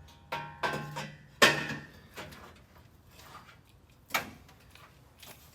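Metal clanking as a steel exhaust header is worked into place under a car: three quick knocks in the first second and a half, some ringing briefly, the third the loudest, then one more knock about four seconds in.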